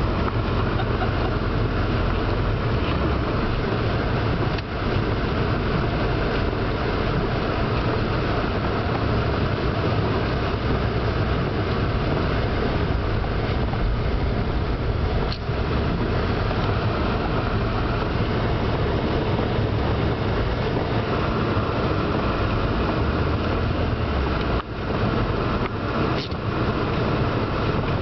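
Steady road and engine noise of a vehicle driving through snow, heard from inside the cabin.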